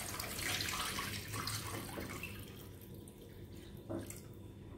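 Water poured from a plastic bowl into a stainless steel pot of fish pieces, splashing most strongly for the first couple of seconds and then trailing off. A short knock comes about four seconds in.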